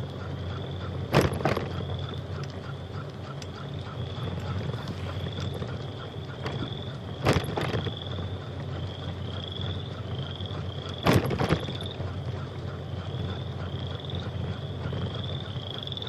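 A small calling animal gives a steady series of short, rising high chirps, about two a second, which the rider wonders might be crickets. Three sharp double clicks stand out as the loudest sounds, about a second, seven seconds and eleven seconds in, over a steady low rumble.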